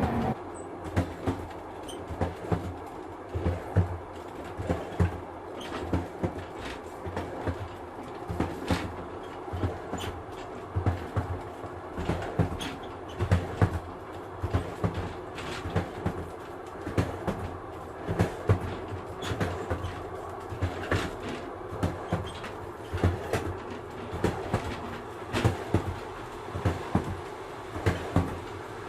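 Inside a moving train carriage: a steady rolling rumble with frequent knocks and clicks from the wheels, often coming in quick clusters.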